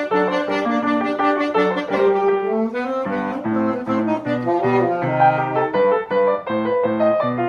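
Grand piano playing continuously, together with a wind instrument holding long sustained melody notes.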